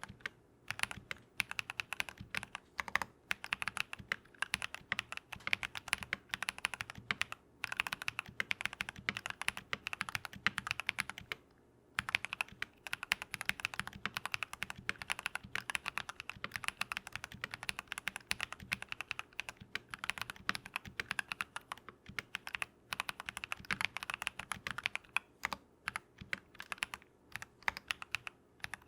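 Continuous typing on a Keychron V1 mechanical keyboard with lubed Drop + Invyr Holy Panda tactile switches and foam and film mods: rapid key strokes, with two short pauses, one about seven seconds in and one about twelve seconds in.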